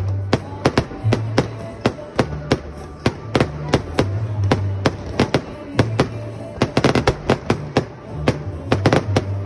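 Fireworks going off overhead in an irregular string of sharp bangs, packed closest together about seven seconds in, over music with a low bass line.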